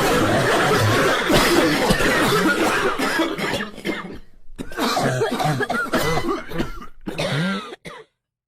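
Heavy, continuous coughing, many coughs crowding one on another, with a brief lull about four and a half seconds in; it cuts off suddenly about eight seconds in.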